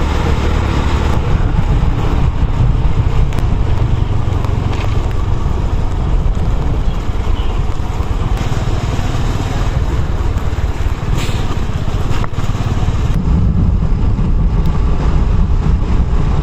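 Steady wind rush and road noise on a moving motorcycle, with its engine running underneath.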